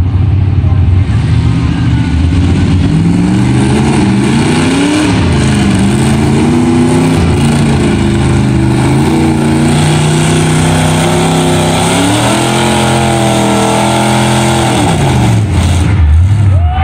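Pickup truck's engine revving hard under load as it drags a pulling sled. Its pitch climbs, drops back and climbs again several times, with a sharp fall near the end as the front of the truck lifts into a wheelstand.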